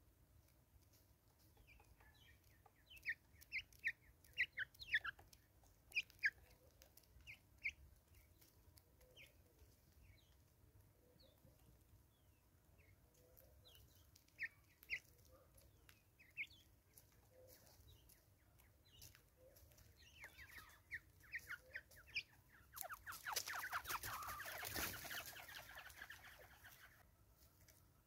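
Natal spurfowls giving short, sharp falling call notes in scattered clusters. Near the end comes a louder, rapid rattling burst lasting about four seconds.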